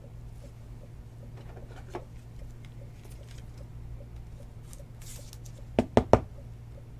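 A sleeved trading card sliding into a rigid plastic top loader, with soft plastic rustling and small clicks, then three sharp plastic clicks in quick succession about six seconds in, over a steady low hum.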